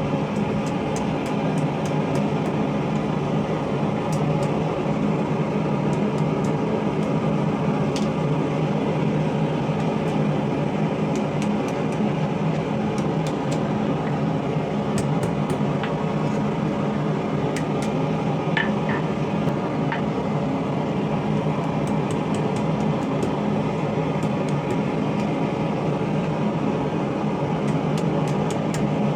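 Blacksmith's forge running with a steady humming rush and no hammer blows, with a few faint scattered ticks.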